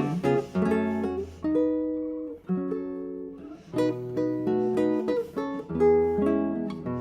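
Acoustic guitar playing: chords plucked and strummed, each left to ring before the next is struck every second or so.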